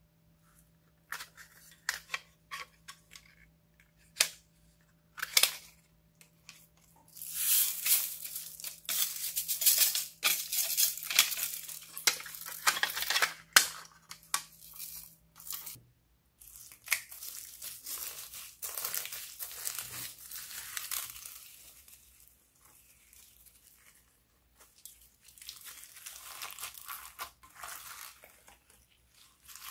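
Crackling, crinkling noise of clear slime full of foam beads and sequins being handled and mixed, in stretches and loudest about halfway through. In the first few seconds there are separate sharp clicks and taps from a hard plastic toy crown being handled.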